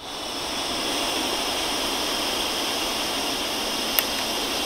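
A steady, hissing rush of breath blown into the mouthpiece of a BACtrack Mobile breathalyzer during a breath test. One sharp click comes about four seconds in: the device's air pump drawing the breath sample across the sensor, a click that is normal during the test.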